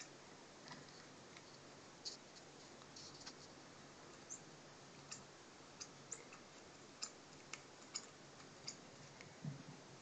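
Near silence in a small room, broken by about a dozen faint, sharp, irregular clicks and a soft low thump near the end.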